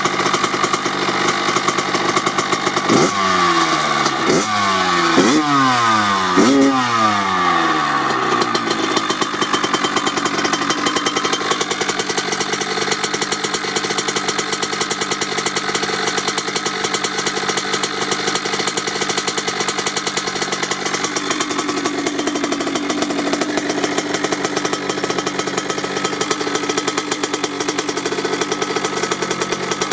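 1997 Kawasaki KX80's 80cc two-stroke single-cylinder engine through a Dep S2 silencer, idling, blipped four times in quick succession a few seconds in, then settling back to a steady idle.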